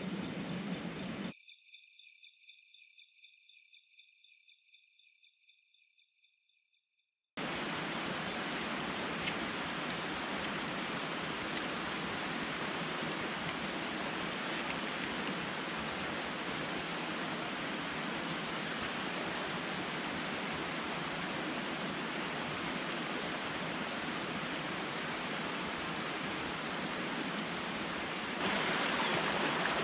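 A high, pulsing night chorus of chirping that fades out over the first seven seconds. Then steady rushing water, a stream or waterfall, starts suddenly and grows a step louder near the end.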